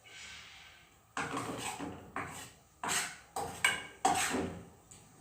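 A kitchen utensil knocking and scraping against a pan, about six strokes, while slime is heated on the stove.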